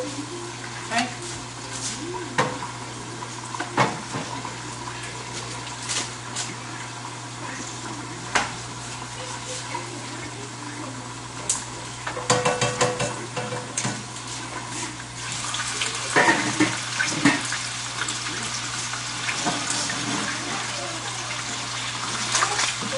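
Meatballs frying in oil in a skillet on a gas stove, with metal spatula and tongs clinking and scraping against the pan. About fifteen seconds in, a steady sizzling hiss sets in and grows louder as the skillet full of meatballs heats.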